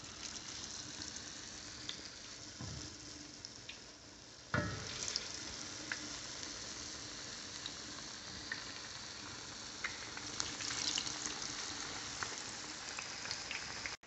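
Batter-coated eggs frying in a pan of hot oil: a steady sizzle with scattered pops and crackles, which turns suddenly louder about four and a half seconds in.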